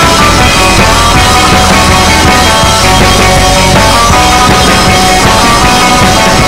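Loud rock music.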